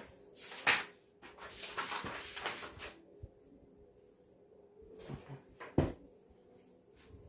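Handling and movement noises close to the microphone: a sharp click, then rustling, then a few knocks ending in one loud sharp knock.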